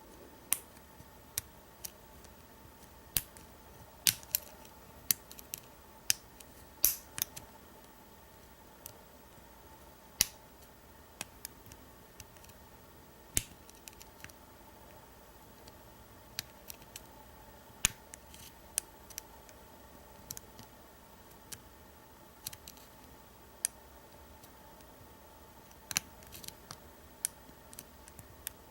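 Sharp metallic clicks and ticks at irregular intervals as a hook pick works the pin stack of an American 1305 padlock under tension from a pry-bar tension wrench, the sound of single pin picking.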